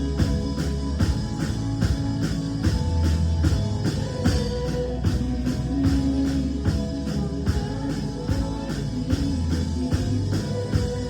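Live worship band playing an instrumental passage: drum kit keeping a steady beat under guitar and held low notes, with no singing.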